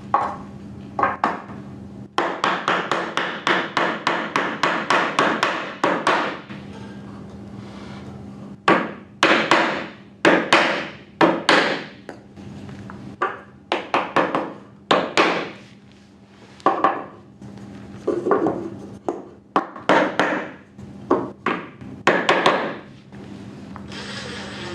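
Hammer blows on timber rafters: a quick run of light taps, about four a second, then heavier blows in groups with short gaps between. Near the end a power screwdriver starts running as it drives a screw into a rafter.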